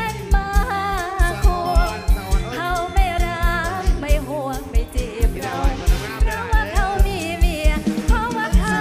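A woman singing into a headset microphone with a live band, her melody wavering and ornamented, over a steady, heavy kick-drum beat.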